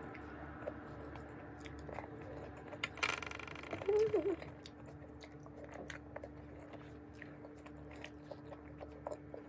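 Close-up chewing of mixed vegetables, with many small wet mouth clicks. A brief louder mouth noise comes about three seconds in, followed by a short voiced sound.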